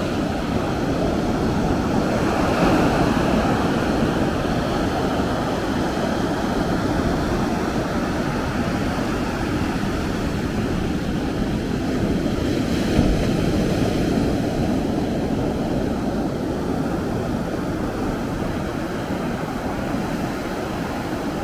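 Ocean surf breaking and washing up the beach as a steady rush of noise, swelling twice as waves come in.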